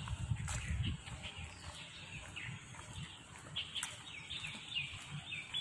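Birds chirping in the trees: many short, falling chirps, coming thickest in the second half. A low rumble sits under them in the first second.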